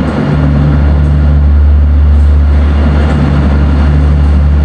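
Diesel engines of NYC Subway R156 locomotives running as the work train approaches: a loud, steady low drone with a hum in it, echoing in the underground station.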